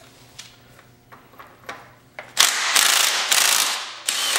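Socket wrench on a motorcycle's 22 mm front axle nut: a few light clicks, then, about two and a half seconds in, about two seconds of fast, loud ratcheting as the loosened nut is spun off the axle.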